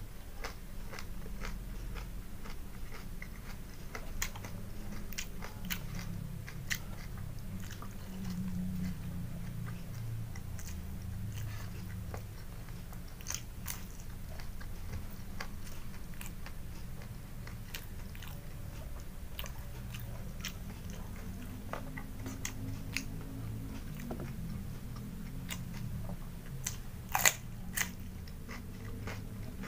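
A person chewing and crunching raw vegetables close to the microphone, a small round green eggplant and cucumber among them, with crisp bites throughout. The loudest bite is near the end, into a cucumber slice.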